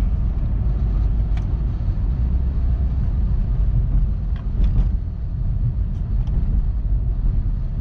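Toyota RAV4 engine and road noise heard inside the cabin while driving, a steady low rumble with a few faint clicks about four to five seconds in. The automatic transmission is not shifting properly.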